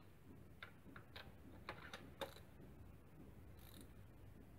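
Faint, irregular clicks of a socket ratchet as a spark plug is tightened: about half a dozen over a second and a half, the last one the loudest.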